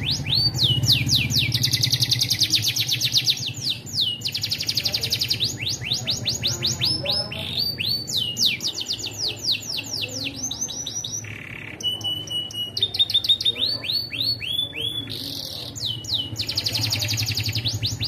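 Domestic canary singing a long, almost unbroken 'ngeloss' song. It is made of fast trills of repeated falling whistled notes that switch speed and pitch every second or two, with only a brief break near the middle.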